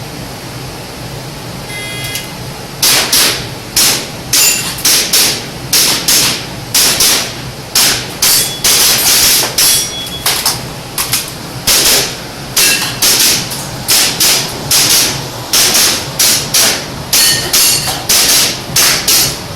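An electronic shot-timer beep about two seconds in, then a fast string of airsoft pistol shots, about thirty in all, often in quick pairs. Some shots are followed by a short high ringing tone.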